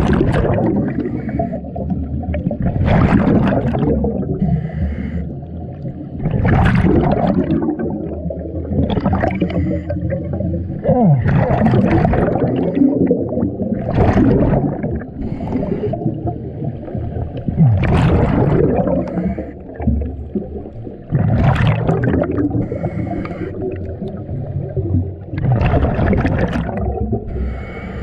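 Scuba diver breathing through a regulator underwater: a loud rush of exhaust bubbles about every three to four seconds, with a fainter hiss of the inhale between them.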